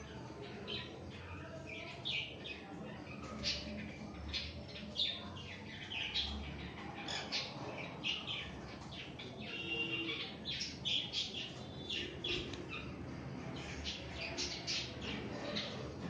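Yellow-sided conures, a colour mutation of the green-cheeked conure, giving many short, high chirps and squawks, which come thicker in the second half.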